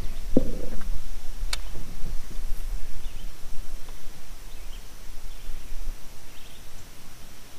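Outdoor ambience on a small fishing boat: a low rumble that fades after about six seconds, with a thump about half a second in and a sharp click about a second and a half in, over a faint steady high drone and a few faint chirps.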